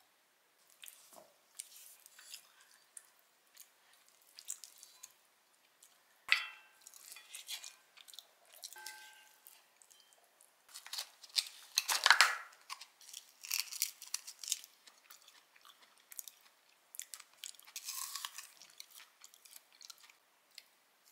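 Close-up eating sounds: soft food chewed, with a few crisp crunches and clicks, and a wooden spoon scraping the inside of an enamelled cast-iron pot. The sounds come in irregular bursts, loudest about twelve seconds in.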